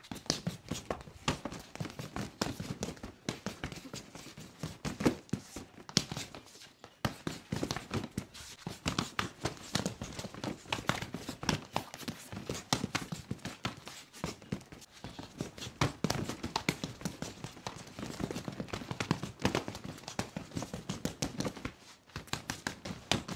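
Rapid, irregular hand strikes on a freestanding mannequin training dummy with padded vinyl arms: punches, palm slaps and arm traps landing as quick smacks and thuds, several a second, with short pauses.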